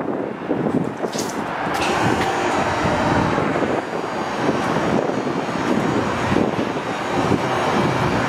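Dodge Charger R/T's 5.7-litre HEMI V8 running in the shop bay, a steady exhaust rumble with no revving.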